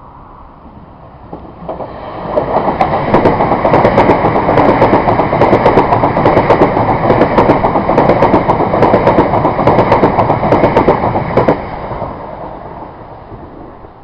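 A train passing through without stopping: it swells up about two seconds in, runs loud for about nine seconds with rapid clattering clicks from the wheels on the rails, then fades away near the end.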